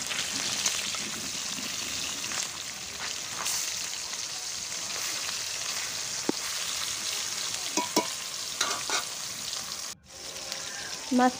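Rohu fish pieces frying in hot oil in a kadai: a steady sizzle, with a metal spatula now and then clicking and scraping against the pan as the pieces are moved. The sound drops out for a moment about ten seconds in.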